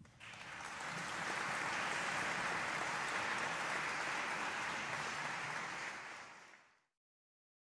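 Audience applause that starts as the music ends, swells over the first second and holds steady, then fades out about a second before the end.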